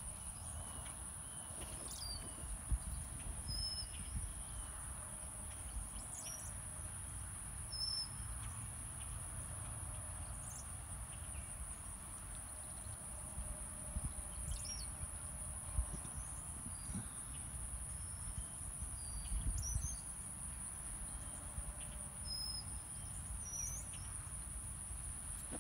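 Open-pasture ambience: a steady high-pitched insect drone, a scattering of short bird chirps, and low wind rumble on the microphone.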